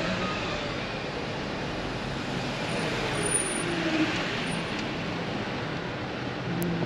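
Steady rush of vehicle and wind noise while moving slowly past parked cars, with a van driving close by. The van's engine note falls in pitch as it passes, about four seconds in.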